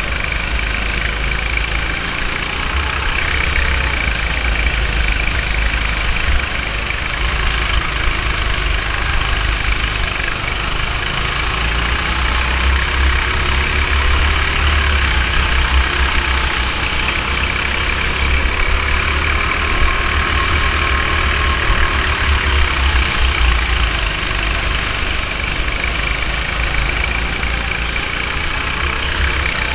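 Go-kart engine running steadily under the driver through laps of the track, its pitch wavering gently up and down, over a heavy low rumble.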